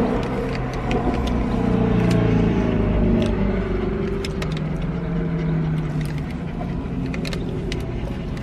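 Steady low hum of a car engine idling, heard from inside the cabin, with a wavering tone over the first few seconds. Scattered sharp clicks come from chewing and the paper wrapper.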